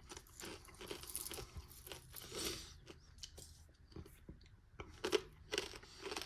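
Crunching and chewing on dried Jerusalem artichoke and beetroot chips, a run of irregular crisp crunches.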